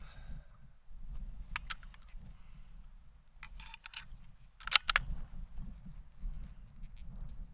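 Wind buffeting the microphone, with a few sharp metallic clicks from a Browning A-Bolt bolt-action rifle being loaded: a cartridge going into the action and the bolt being worked, the loudest clicks about five seconds in.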